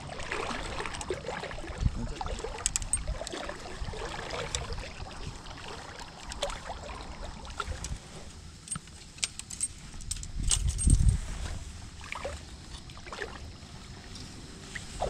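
Footsteps wading and squelching through shallow water and mud, with small clicks and knocks. There is a low thump about two seconds in and a louder one around eleven seconds.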